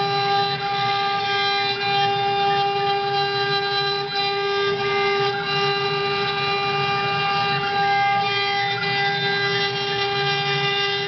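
CNC router spindle running with a steady high-pitched whine as its tapered carving bit cuts a wooden corbel. A rough cutting noise from the bit in the wood runs underneath.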